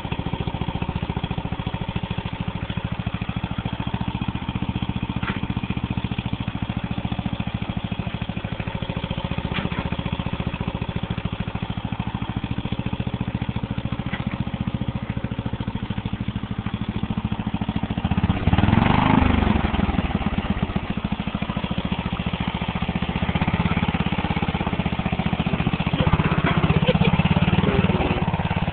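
Riding lawn mower's 12-horsepower engine running under load, revving up hard about two-thirds of the way through and staying louder to the end.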